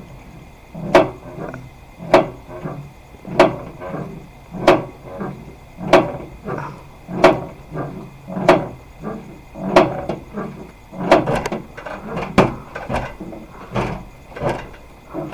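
Regular knocking, about one knock every second and a quarter, each followed by a few lighter clicks.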